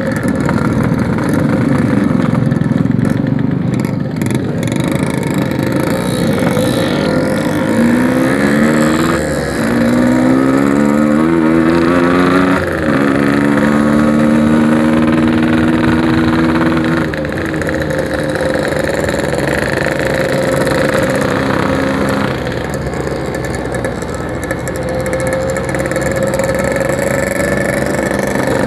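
Yamaha RX-King's two-stroke single-cylinder engine running under way. Its pitch climbs in steps through the gears from about a third of the way in, drops sharply at a shift, then holds steady at cruising speed.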